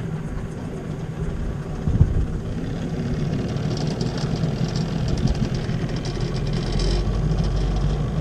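Boat motor running steadily at low speed, with a single knock about two seconds in and a deeper rumble building near the end.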